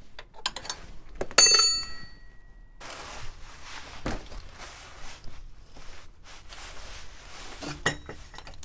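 Metal clinks and scraping as the exhaust downpipe of a Lancia Delta Integrale is unbolted and worked free under the car: one loud, sharp metallic clink about a second and a half in that rings briefly, then scraping and rustling with a knock near four seconds and another near eight.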